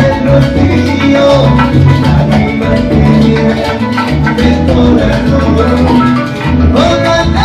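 Salsa orchestra music: a band playing with a repeating bass line under percussion and melodic instruments.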